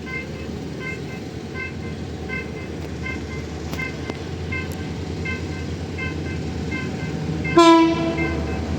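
An approaching TCDD DE 22000-class diesel-electric locomotive rumbles, growing slowly louder, and gives one short, loud horn blast near the end. Throughout, a repeating electronic warning chime sounds about every 0.6 seconds.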